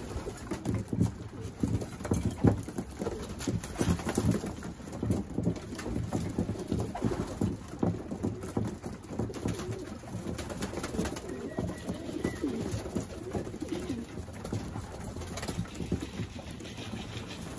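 A flock of racing pigeons cooing together in many overlapping low calls, with scattered light clicks.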